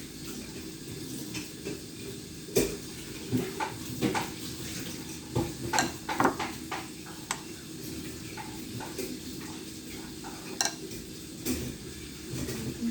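Utensils clinking and knocking against dishes in irregular short strikes over a steady low hum, as in preparing food at a kitchen counter.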